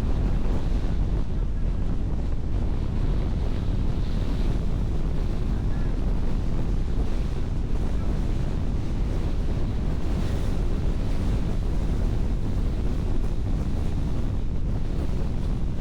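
Strong wind buffeting the microphone: a steady, loud, low rushing noise.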